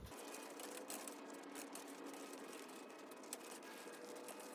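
Wire fence stay being twisted out of the fence wires with a screwdriver: faint metallic scraping with a few light ticks.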